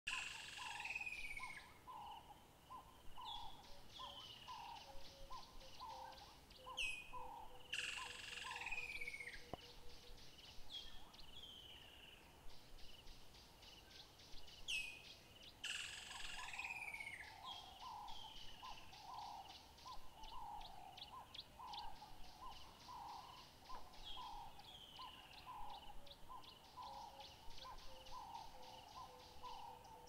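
Several birds calling together. A steady series of low notes repeats about one and a half times a second, sharp downslurred whistles come every few seconds, and bursts of fast, high ticking trills are mixed in.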